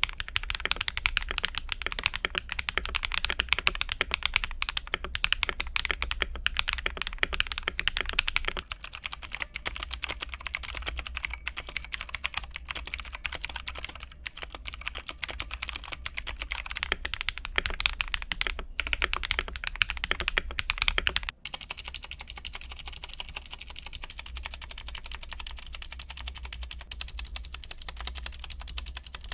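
Rakk Lam-Ang Lite mechanical keyboard, fitted with Akko Vintage White and Lavender Purple switches, lubed stabilizers, tempest tape and PE foam mods, being typed on quickly and continuously. About 21 s in the typing breaks off for a moment, then resumes quieter and thinner.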